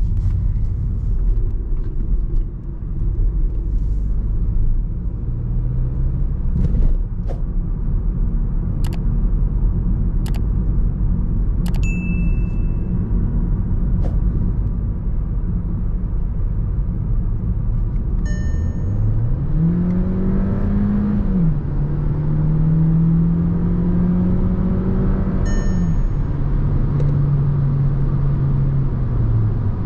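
Steady road and tyre rumble from the 2024 VW T-Roc 1.5 TSI, with a few light clicks and two short electronic beeps. From about two-thirds of the way in, the turbocharged four-cylinder petrol engine rises in pitch under acceleration, drops twice at upshifts, and then eases off near the end.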